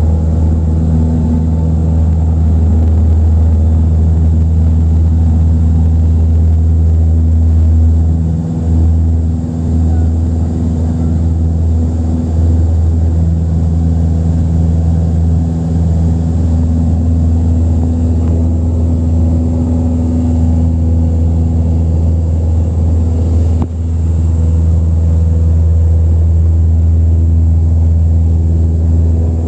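Cessna 172's piston engine and propeller at takeoff power, heard inside the cabin as a loud, steady deep drone through the takeoff roll and climb. The drone dips briefly three times.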